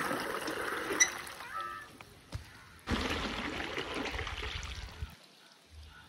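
Water gushing from a pipe and splashing onto soil, then running along an irrigation furrow, with a short pitched call about one and a half seconds in. The flowing water cuts in suddenly about three seconds in, with a low rumble of wind on the microphone.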